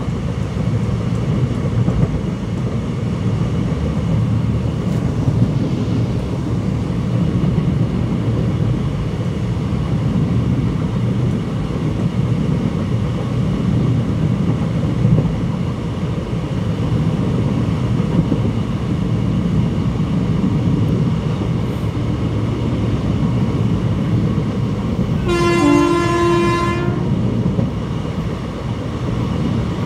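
ICF passenger coaches running on the track, a steady rumble. About 25 seconds in comes one horn blast from the hauling WCAM2 electric locomotive, lasting under two seconds.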